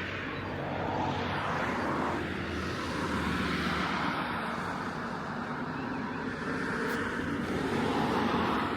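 Vehicle noise: a steady rushing that swells about a second in and again near the end.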